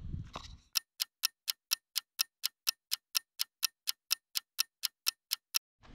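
Clock-ticking sound effect, quick even ticks at about four a second with dead silence between them, starting about three-quarters of a second in. It marks a jump of two and a half hours in time.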